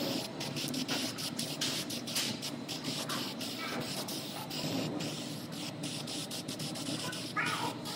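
Aerosol can of weld-through primer spraying in many short hissing bursts onto bare steel panel flanges.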